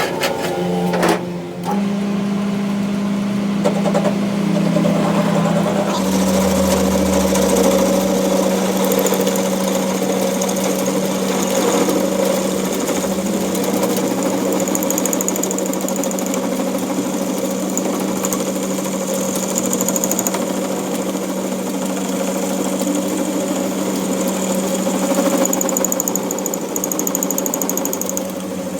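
Workshop machine running steadily, a constant motor hum with a light rattle over it; the hum's pitch steps down slightly about six seconds in.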